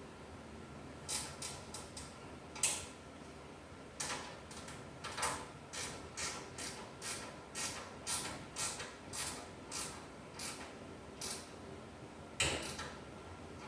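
Ratcheting wrench clicking in repeated short strokes, about two a second, as nuts are run down.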